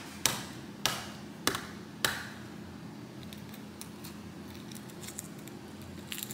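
Hard-boiled egg tapped against the countertop four times to crack its shell, sharp clicks about 0.6 s apart, followed by a faint crackle of shell being peeled off by hand.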